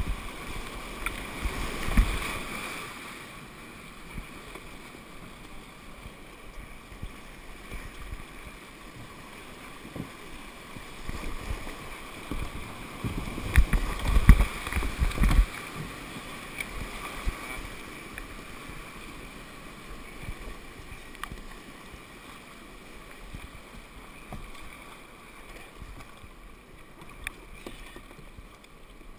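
Whitewater rapids rushing under and around a kayak, with heavy splashing and low rumbling surges of water hitting the boat as it runs the rapid, loudest about two seconds in and again between about twelve and fifteen seconds in. Quieter flowing water toward the end.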